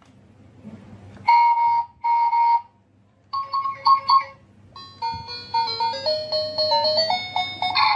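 Electronic sound module of a toy cement mixer truck set off by its cab buttons: two short beeps, then a tinny electronic tune of quick stepping notes.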